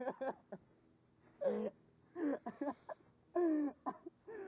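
A man groaning in pain after a mountain-bike crash: about four short, wordless groans with pauses between them, the loudest about three and a half seconds in.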